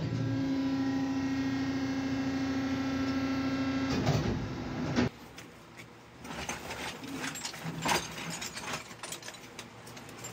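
A workshop machine runs with a steady hum for about five seconds and cuts off abruptly. Then come quieter rustles, scrapes and clicks of woven plastic sacks being shifted and lifted.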